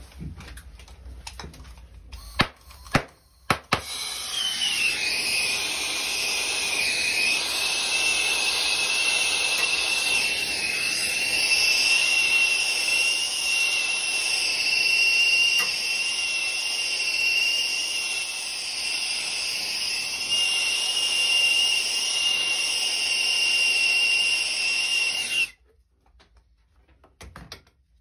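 A few sharp clicks, then a hose-fed hand torch burning with a steady loud hiss and a high whistle, its flame played along a painted copper pipe to soften the paint. The whistle dips slightly in pitch as it settles, and the sound stops abruptly near the end.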